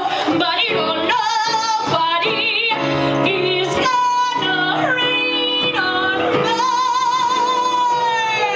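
A woman belting a Broadway show tune with wide vibrato over instrumental accompaniment. She holds one long sustained note in the last couple of seconds.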